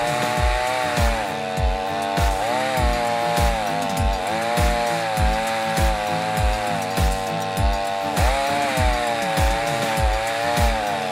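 Stihl 500i two-stroke chainsaw with a ripping chain running at high revs as it rips lengthwise through a maple log in a chainsaw mill, its pitch dipping and recovering with the load. Background music with a steady kick-drum beat, about two beats a second, plays over it.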